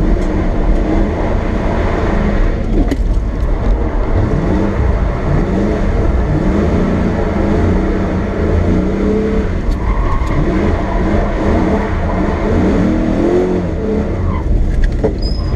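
Lexus SC400's 1UZ V8 engine revving up and falling back several times over a steady low rumble, as the car is pitched sideways on the e-brake on wet pavement.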